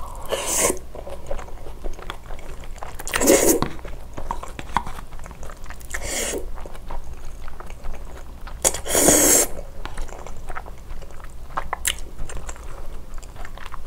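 Close-miked eating sounds: a person slurping in mouthfuls of cold spicy young-radish bibim noodles, four loud slurps about three seconds apart, with wet chewing clicks in between.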